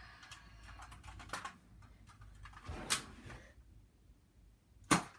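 Rustling and shuffling of a person moving about, with scattered light clicks, then one sharp, loud knock near the end.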